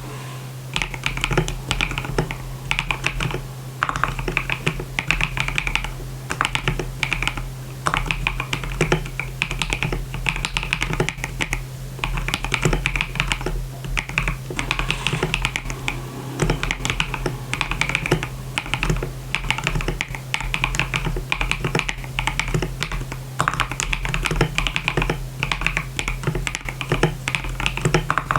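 Typing on a KBD67 Lite R2 custom mechanical keyboard with KTT Strawberry linear switches lubed with Krytox 205g0 (springs with Krytox 105), a polycarbonate plate and Akko keycaps. The sound is a fast run of key clacks in bursts, with short pauses every couple of seconds.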